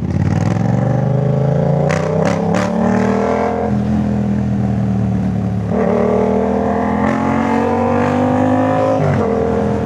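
Yamaha MT-07's 689 cc parallel-twin engine breathing through a full Jeskap aftermarket exhaust, accelerating hard twice. The note climbs, falls away about four seconds in, climbs again from about six seconds and drops near the end. A few sharp clicks come about two seconds in.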